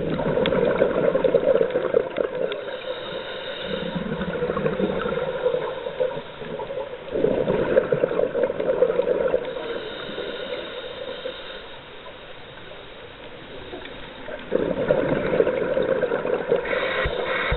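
Scuba regulator breathing underwater: three loud bubbling bursts of exhaled air about seven seconds apart, with a faint hiss between them.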